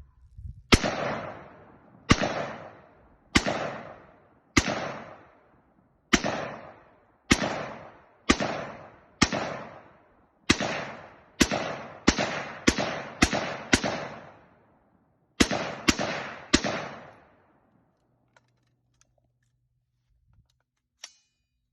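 Diamondback DB15 AR-15-style rifle fired semi-automatically, about seventeen shots at roughly one a second, quickening to a faster string partway through. Each shot echoes and fades before the next.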